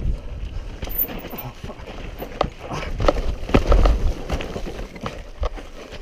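Mountain bike rattling and skidding down a steep, sandy, rutted trail, with a run of irregular knocks. About three and a half seconds in there is a heavy thump and scuffing as the bike and rider go down in the loose sand.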